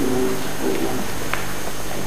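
Faint voices talking in the background over steady hiss and a low hum on an old camcorder tape recording.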